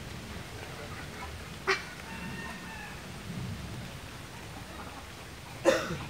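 Domestic fowl calling over outdoor background noise: a short sharp note about a second and a half in, a drawn-out steady call just after two seconds, and a louder short cry near the end.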